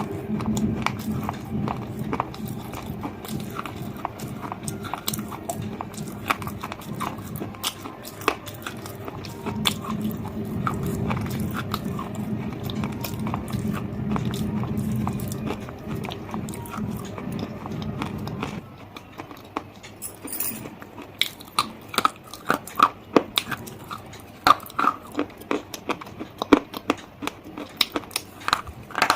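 Close-miked biting and chewing of something hard and crunchy, with crisp cracks and crunches. A steady low hum sits underneath and cuts off about two-thirds of the way through, after which louder, spaced crunches stand out.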